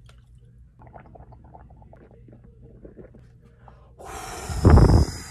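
Mouthwash being swished and gurgled around in the mouth, faint and irregular. About four seconds in a hiss starts, and a loud huff of breath is blown straight onto the microphone.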